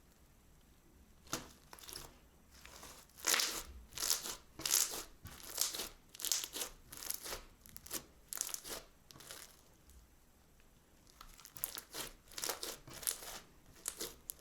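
Crunchy slime being squeezed and pressed, crackling and popping in short bursts, about one or two a second, with a brief pause about two-thirds of the way through.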